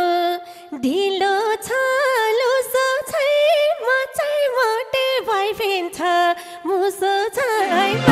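A woman singing a dohori folk melody alone, without accompaniment, in short phrases with held notes and ornamented turns and brief breaths between them. The band comes in with drums right at the end.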